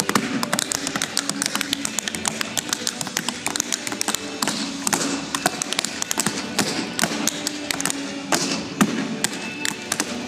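Tap shoes striking a stage floor in fast, dense rhythms as a tap routine is danced, with music playing underneath.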